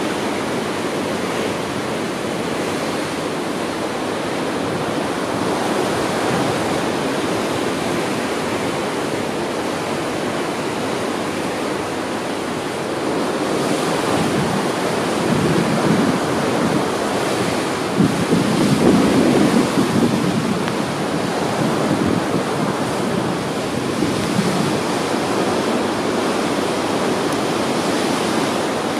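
Rushing of a whitecapped sea and a ship's foaming wake, heard from the deck of the moving ship as a steady roar. Wind buffets the microphone, louder and gustier through the middle stretch.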